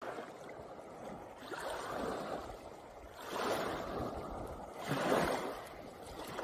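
Small waves washing in over a pebble beach, the wash swelling and fading three times, about every one and a half seconds.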